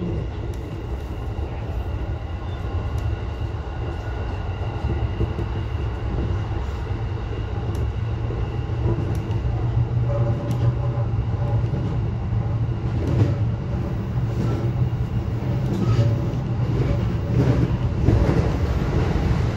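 Electric commuter train running along the track, heard from the driver's cab: a steady low rumble of wheels on rail with scattered clicks. It grows a little louder near the end as the train runs into a tunnel.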